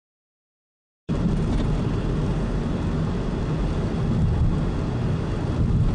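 Digital silence, then about a second in the steady engine and road noise of a moving car, heard from inside it, cuts in abruptly.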